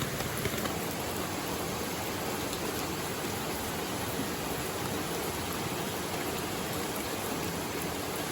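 Steady rain mixed with rushing river water and small waterfalls, an even hiss with a few sharp raindrop ticks in the first second.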